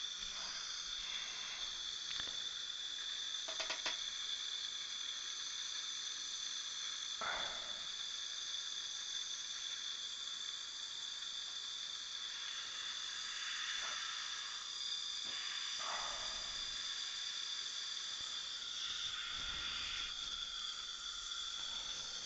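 Steady high-pitched hiss with a thin constant whine, as of dental suction running, with a few faint ticks scattered through it.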